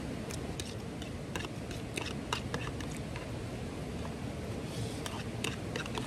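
Steady rushing of a river and stream, with a scattered run of sharp clicks and crackles on top of it.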